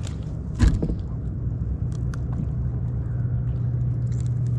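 A steady low engine drone, like a motor running nearby, with one thump a little after half a second in and a few light clicks as a small fish and hook are handled.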